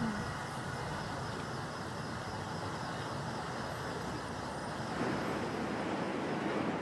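City street ambience: a steady wash of traffic noise, getting a little louder about five seconds in.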